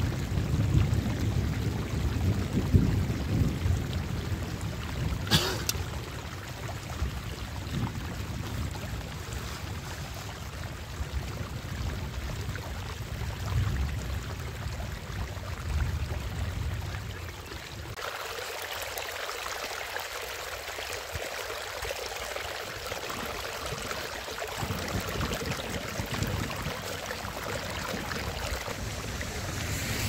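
Muddy rainwater runoff pouring over a small earthen ledge on a dirt road, a steady rushing splash with a low rumble. About eighteen seconds in the rumble drops away and the sound turns to a lighter, higher hiss of shallow water running over the ground.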